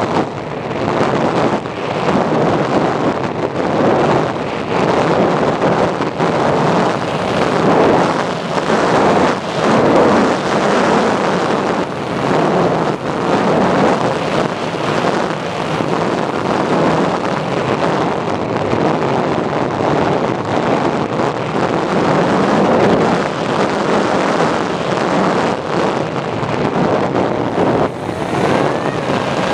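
Loud, gusty wind rushing over the microphone of a camera carried aboard a radio-controlled plane in flight, mixed with the plane's motor and propeller noise.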